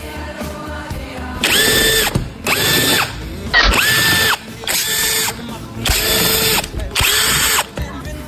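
Handheld power tool driven in about six short trigger bursts, its motor whining up, holding and spinning down each time, with a rattling noise under it. This is typical of taking bolts off during work on an air-conditioning compressor clutch.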